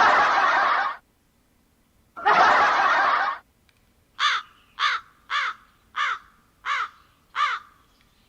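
Preset sound effects played back from an ICKB SO8 live-streaming sound card: two short bursts of noise, then six crow caws with falling pitch, about 0.6 s apart.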